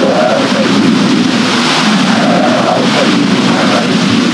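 Steady rushing of water from a turning water wheel and a flowing river.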